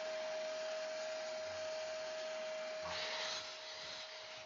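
Makita 10-inch sliding miter saw running with its dust extraction, a steady motor whine with a hiss. About three seconds in, the blade bites down into a pressure-treated 2x6 board and the sound brightens briefly as it cuts.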